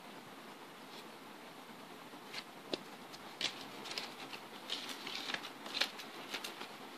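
Irregular light clicks and rustles of a person moving and handling things close by, starting about two and a half seconds in and busiest in the second half.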